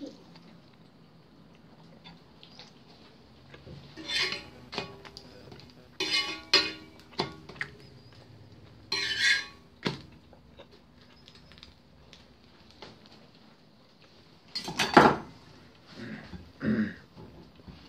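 Dishes and utensils clinking and clattering in several separate bursts, some with a brief ringing, and one louder knock about fifteen seconds in.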